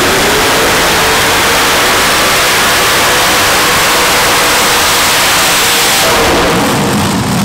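Unlimited-class multi-engine pulling tractor running at full power, loud and steady, as it drags the weight-transfer sled down the track.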